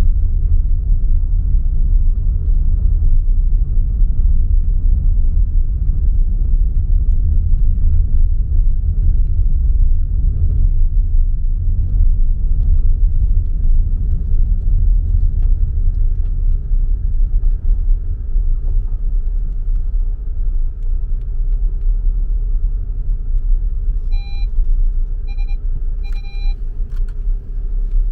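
Heavy machinery's diesel engine running with a steady low rumble, and three short electronic beeps near the end, like a warning alarm.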